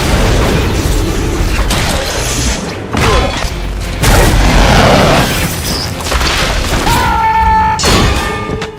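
Loud, continuous booming and crashing noise that shifts every second or so, with a short held tone near the end.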